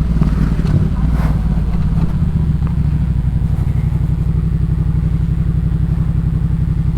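2018 Yamaha MT-07's parallel-twin engine through a Jeskap K4 full exhaust, running at low revs and settling into a steady idle after about two seconds.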